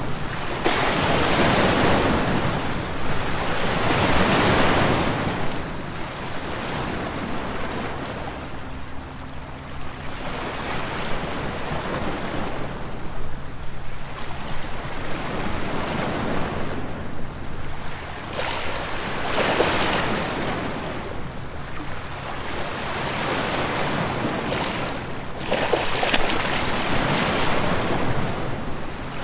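Sea waves washing in and drawing back, each wash swelling and fading over a few seconds.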